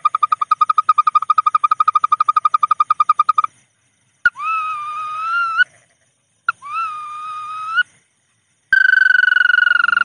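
Recorded lure call of the bawangan rice-field bird playing back. A fast trill of whistled notes on one pitch stops about three and a half seconds in. After a pause come two separate drawn-out whistles that rise slightly, each starting with a sharp click. Near the end a long trill begins, slowly falling in pitch.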